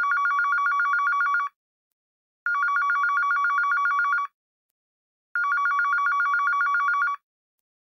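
Phone ringing with a classic trilling two-tone ring: three rings of about two seconds each, a second or so apart.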